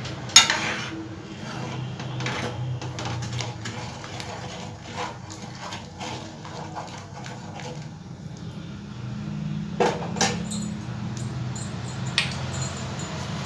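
A steel ladle stirring dal in a metal kadhai, clinking and scraping against the pan in irregular knocks, louder about half a second in and again around ten seconds in, over a low steady hum.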